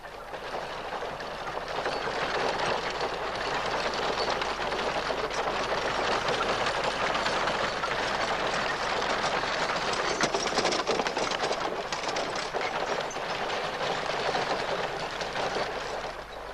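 Wooden-spoked cart wheel rolling, a steady rattling rush of noise that builds over the first second or two and fades near the end.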